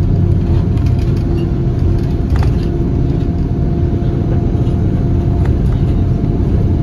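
Shuttle bus driving along a road, heard from inside the cabin: a steady engine and road rumble with a held hum.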